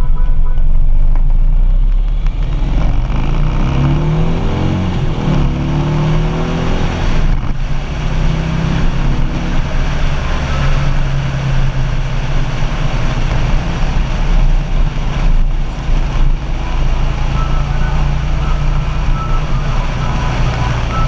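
Harley-Davidson Street Glide's V-twin engine running at road speed, with a steady rush of wind over the windshield. About three to seven seconds in, the engine note rises as the bike accelerates, then settles into a steady cruise.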